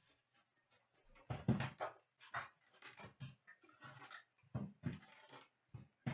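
Packaging rustling and tearing in irregular bursts as a box of hockey card packs is opened.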